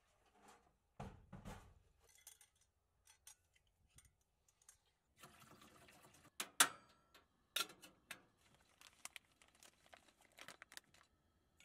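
Water poured from a plastic bottle into a metal percolator coffee pot, followed by a few sharp clicks and knocks. Near the end comes the crinkle and tearing of a paper coffee bag being opened. Soft rustling of bedding near the start.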